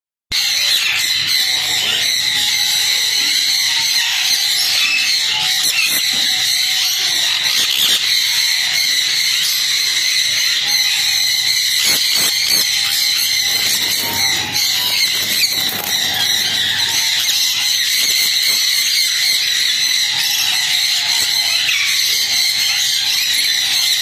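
A steady, dense, high-pitched chorus of calling animals that never lets up.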